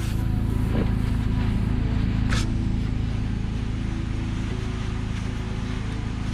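A vehicle engine idles with a steady low hum, with one short hiss about two and a half seconds in.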